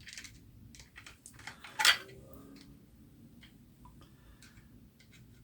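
A few light metallic clicks and clinks as air rifle parts are handled and fitted back onto the stock, with one louder clack about two seconds in.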